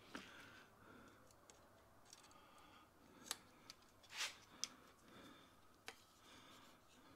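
Faint handling sounds: a handful of short, sharp clicks and taps, mostly in the second half, as a hand pop-rivet gun is picked up and its nose fitted over a rivet's mandrel in a plastic cistern flush lever.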